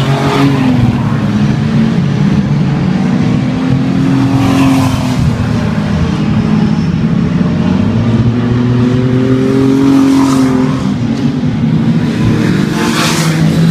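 A field of speedway race cars lapping a dirt oval, several engines running hard at once and rising and falling in pitch as the cars accelerate out of the turns and lift into them. The sound swells louder about four seconds in and again near the end.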